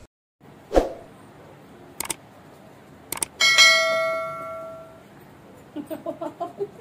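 Subscribe-button sound effect: a couple of quick mouse clicks, then a notification bell dings and rings out for about a second and a half. A thump comes about a second in.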